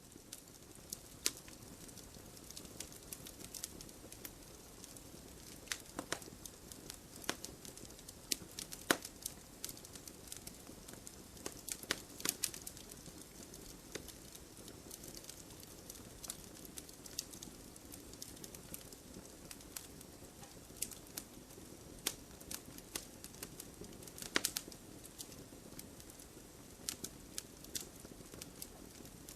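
Burning firewood crackling: a steady soft hiss with irregular sharp pops and snaps, a few of them louder.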